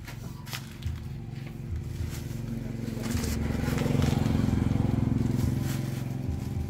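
A small engine running, growing louder from about three seconds in, then easing off near the end.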